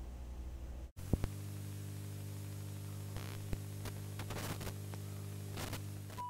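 Steady electrical hum under a static hiss. It cuts out for an instant about a second in and comes back stronger, with two quick clicks and scattered crackles of static.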